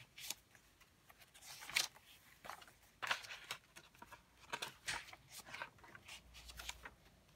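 Paper pages of a handmade junk journal being turned by hand: a string of short dry rustles and swishes as each leaf is lifted and laid over, the loudest a little under two seconds in.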